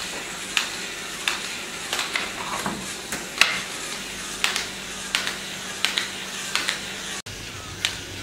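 Homemade DC-motor walking robot running on a hard floor: its curved plastic legs strike the ground in a regular series of sharp taps, roughly one and a half a second, over a steady hiss. The sound drops out for an instant near the end, then the taps go on.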